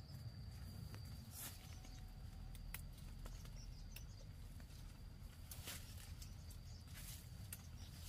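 Scattered soft rustles and light clicks over a low steady rumble, with a faint steady high-pitched tone.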